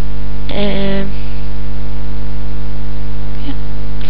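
Loud, steady electrical mains hum, a low hum with a buzzy row of overtones, filling the recording. About half a second in comes a brief voice sound.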